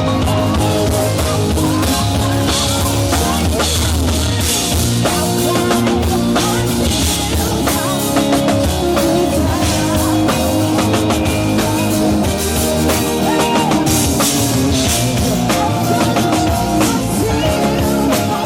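Live band music: a rock-style passage driven by a drum kit, with sustained instrumental lines.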